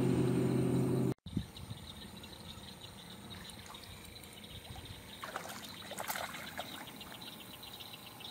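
Boat motor running steadily, cut off abruptly about a second in. Then a fast, even ticking, and water splashing about five to six seconds in as a hooked largemouth bass thrashes at the surface.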